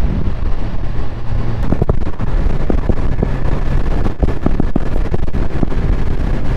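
Motorcycle engine running steadily at road speed, with heavy wind buffeting on the microphone.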